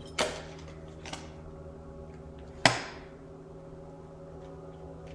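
Two sharp knocks on a hard surface, the second louder, with a fainter tap between them, over a faint steady hum.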